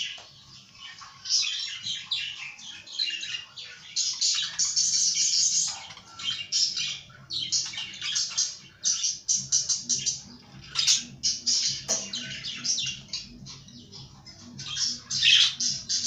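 Caged budgerigars chattering and warbling: quick runs of chirps, squawks and trills in bursts with short pauses between them.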